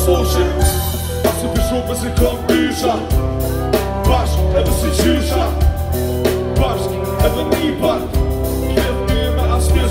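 Live band playing loud through a concert PA: heavy bass and a drum kit keeping a steady beat, with guitar and keyboards under a lead vocalist's singing.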